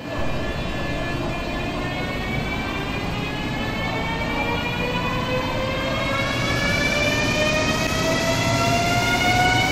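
CRH380B high-speed electric train pulling away, its traction drive whining in several tones that rise steadily in pitch as it gathers speed, over a steady rumble that grows slowly louder.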